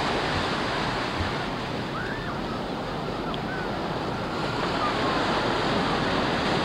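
Ocean surf breaking and washing in, a steady rush of water, with wind buffeting the microphone.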